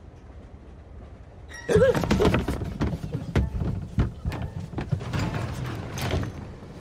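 Low rumble of a moving train carriage, then from about two seconds in a quick, loud run of knocks, thumps and rattles as people bundle through the train toilet's door, with a couple of short wavering vocal sounds among them.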